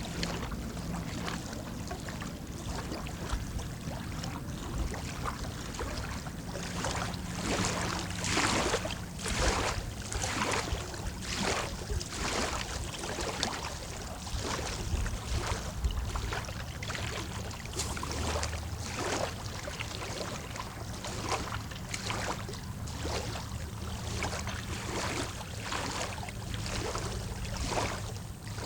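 Small waves lapping against the shore, a splashing wash of water about once a second.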